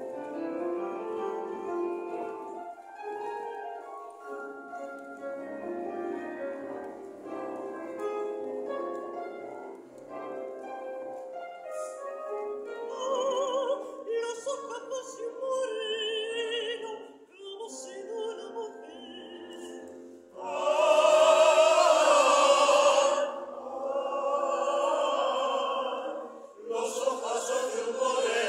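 Zarzuela performance: instrumental accompaniment, then a soprano singing with strong vibrato, her loudest held high note about two-thirds of the way through, with the chorus joining in near the end.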